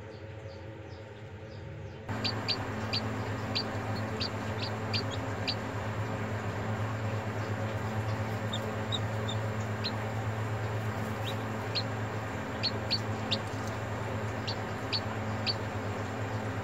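Chicks peeping with short, high cheeps in irregular runs of several, the sound of a hatch under way. A steady low hum runs underneath.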